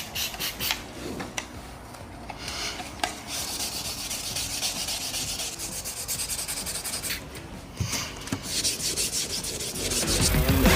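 Carbon fiber mirror cap being wet-sanded by hand with 400-grit sandpaper: rapid back-and-forth rubbing strokes, after a few light clicks at the start. Music comes in near the end.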